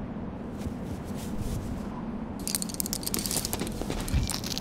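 A steady, hissy background with a low hum, then from about two and a half seconds in, quick rustling and scraping as a rock-climbing shoe is pulled onto a foot.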